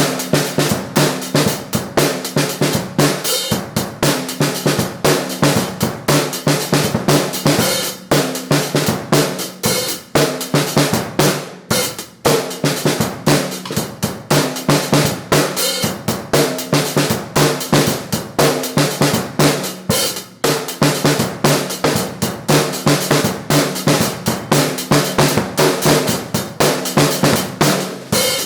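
Outdoor street drum kit played with a busy run of rapid strikes on snare, bass drum and hi-hat, several hits a second, breaking off briefly a few times.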